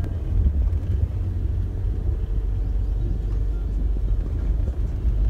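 Steady low rumble of a moving vehicle's engine and road noise, heard from inside the cabin.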